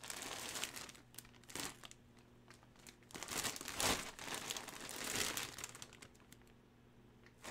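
Clear plastic bag crinkling as a bagged hockey jersey is handled, in uneven bursts. There is a short pause about two seconds in, the busiest rustling comes in the middle, and it goes quiet near the end.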